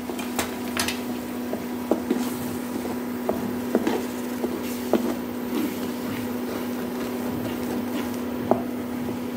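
A spatula stirring tomato into an onion and spice masala in a pan: soft squelching with scattered scrapes and light knocks against the pan, over a steady hum.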